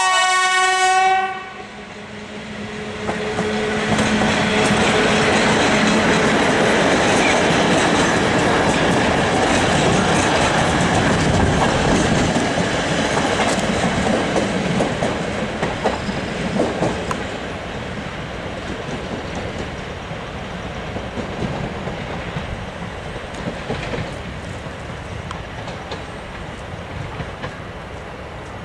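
A train horn gives a short blast that cuts off about a second in. A train then runs by, its wheels clattering over the rail joints, loud for about ten seconds before slowly fading.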